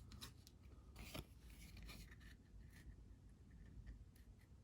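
Faint rustling and a few light clicks of trading cards being slid and flipped through by hand.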